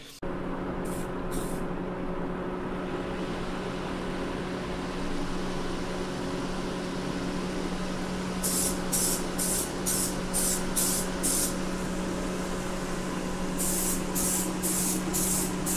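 Aerosol can of primer spraying a plastic car bumper in short repeated bursts of hiss, two brief ones about a second in, then quick runs of them from about halfway and again near the end. A steady low hum runs underneath.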